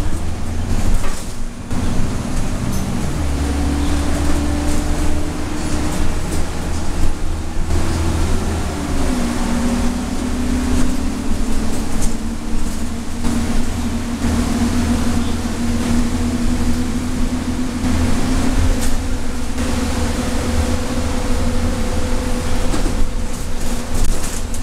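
Interior sound of a 2012 Nova LFS city bus under way: the engine and drivetrain run with a low rumble and a whine that drops in pitch about nine seconds in, then holds steady, over tyre hiss from wet pavement.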